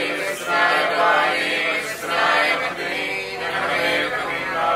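Voices singing together in long, held phrases, like a choir or group chant.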